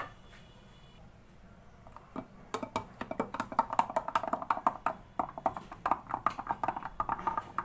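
Mango drink being stirred in a jug of water, the stirrer clinking and tapping against the jug's sides in quick, irregular strokes that start about two seconds in.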